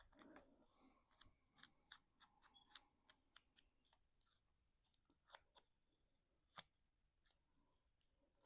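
Faint quick clicks and snips of cut cardstock pieces being handled and fitted together, about three a second for a few seconds, then a few scattered ones.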